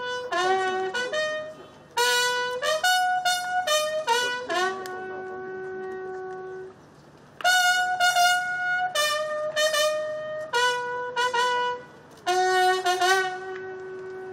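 A single military bugle sounding a salute call: quick runs of notes broken by long held notes, with a short pause about halfway through.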